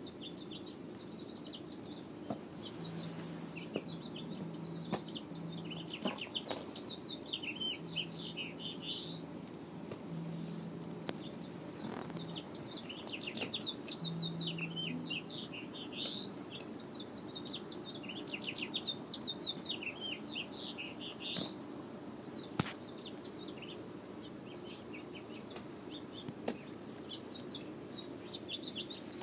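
Birds chirping outdoors in repeated runs of quick, high notes, over a steady low hum, with a few sharp clicks.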